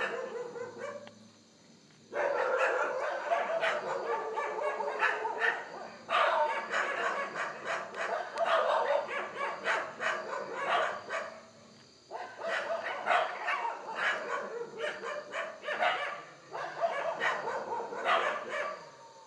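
Dogs barking in long, rapid bouts broken by brief lulls.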